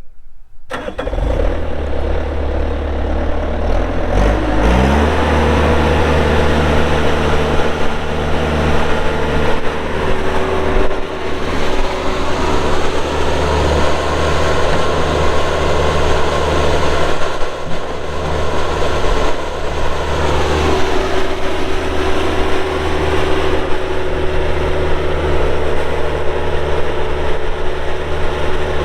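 Kubota diesel engine of a Bobcat A300 skid steer loader running. It rises in pitch about four to five seconds in, runs steadily, then drops back in pitch about twenty seconds in.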